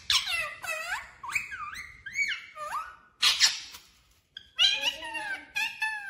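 Indian ringneck parakeet calling: a quick run of short squeaky whistles that slide up and down in pitch, with a harsh screech about three seconds in and a short pause after it.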